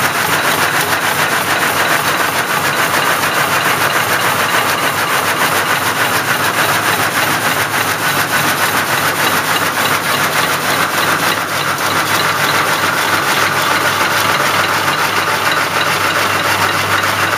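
Satay-skewer smoothing machine running steadily, a loud, continuous mechanical noise with a fast, even clatter.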